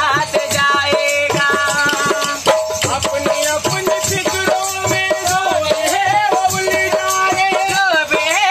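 Two dholak hand drums played in a quick, steady rhythm, with a man singing a folk song over them in long held, wavering notes.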